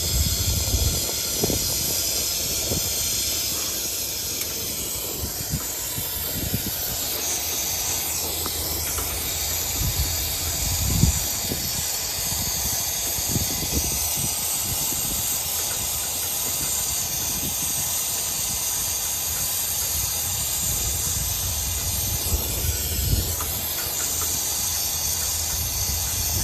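Brazing torch flame hissing steadily as it heats the copper tubes of a heat exchanger coil to braze up leaking holes, with a few dull low bumps, the loudest about eleven seconds in.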